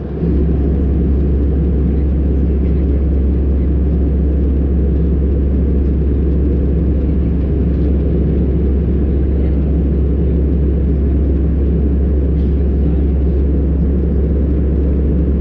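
Loud, steady low rumble of a moving vehicle, unchanging throughout.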